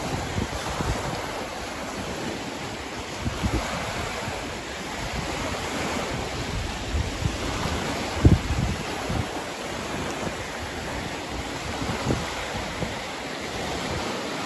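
Small wind-driven waves breaking and washing over a rocky lakeshore, a steady rushing surf, with wind buffeting the microphone in irregular low gusts. There is a sharp thump about eight seconds in.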